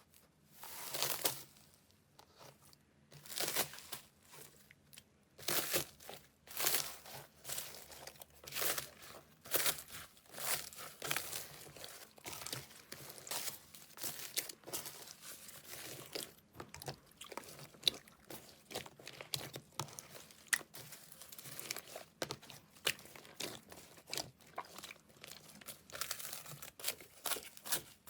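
Slime being squeezed and worked by hand, crackling and popping in irregular bursts that come a second or two apart at first and then closer together.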